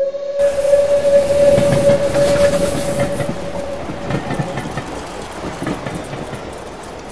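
Train passing with wheels clattering over the rail joints. A long steady whistle sounds at the start and fades out after about four seconds.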